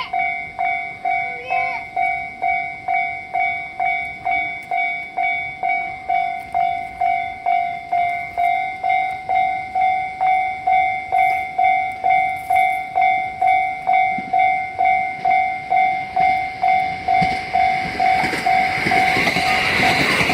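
Japanese railway level-crossing warning bell ringing in a steady electronic ding, about two strikes a second. Near the end the running noise of an approaching train grows beneath it.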